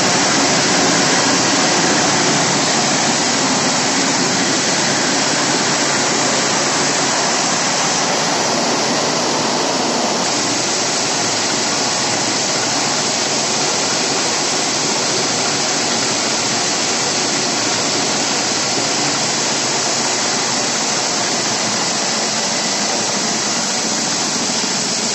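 A 1000 kg-per-hour corn thresher running with a steady, loud rushing noise as shelled kernels stream onto its metal sieve tray.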